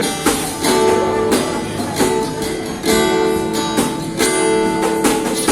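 Acoustic guitar strumming chords, with a stroke about every half second to second and the chords ringing between strokes.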